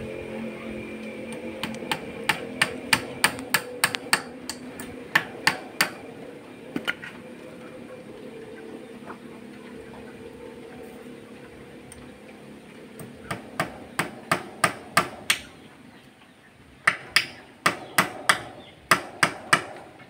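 Hand hammer striking in several runs of quick blows, about three a second, with a pause of several seconds in the middle. It is being used to build a wooden-pole and netting poultry pen.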